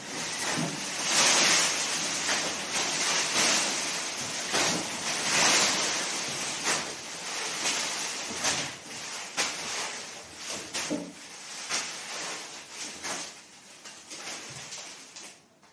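A dense rushing rustle of a great many paper banknotes showering down and landing on the floor, full of small crackles. It is loudest in the first few seconds and thins out and dies away near the end.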